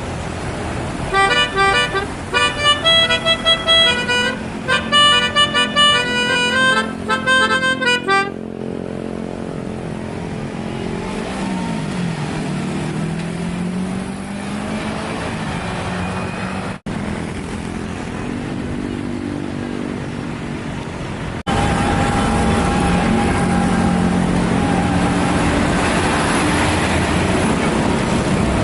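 Bus telolet horn playing a quick tune of loud, short notes at changing pitches for about seven seconds. A large bus engine then runs, its pitch dipping and climbing again as it revs, and continues louder and steady after a cut.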